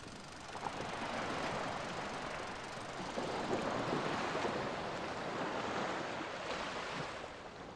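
Ocean surf washing in a steady rush of noise, swelling and easing gently and fading out near the end.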